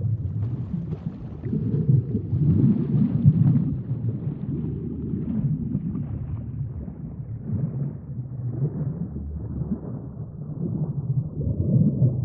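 Ocean surf: waves breaking and washing in a deep, low rumble that swells and eases, louder about two to three seconds in and again near the end.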